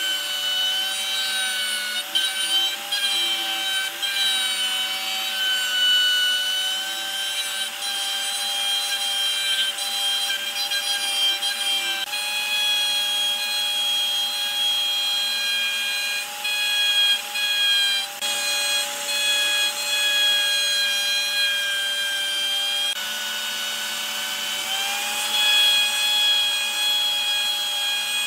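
Electric plunge router running at speed, its spinning bit cutting a shallow pocket into a block of pale wood. The motor makes a steady high whine that sags a little in pitch as the bit takes load, over the rasp of the cut.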